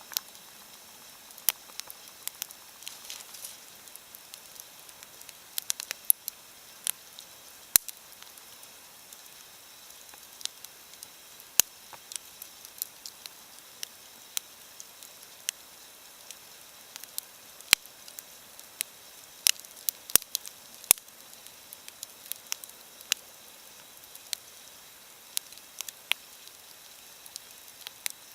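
Wood fire crackling: a faint steady hiss with irregular sharp pops and snaps, a few of them much louder than the rest.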